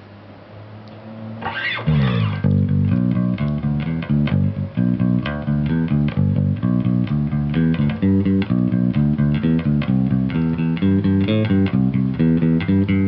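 Warwick Thumb Bolt-On electric bass (1995) played through an Ampeg bass amp. A steady amp hum at first, a downward slide about a second and a half in, then a continuous line of quick notes with sharp plucked attacks.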